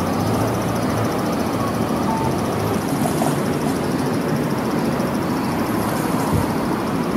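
Steady rumble of city vehicle noise, with a faint low hum and no single event standing out.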